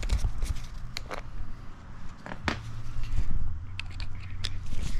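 A screwdriver working the Phillips screws out of the CDI pickup cover on a Honda XR200 engine: scattered small metallic clicks and ticks over a steady low hum.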